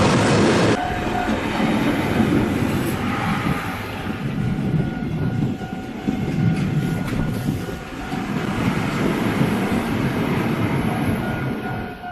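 A train running past on the rails, its wheels clacking over the rail joints, loudest in the first second and then rumbling on unevenly, with a faint steady high tone underneath.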